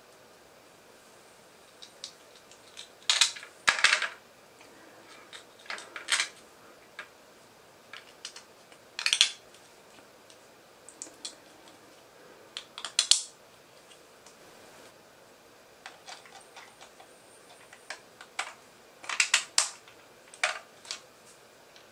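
3D-printed plastic pins being pushed into a printed block, and the block being fitted onto the printed crossbow body: scattered short plastic clicks and scrapes, some in quick pairs, every few seconds.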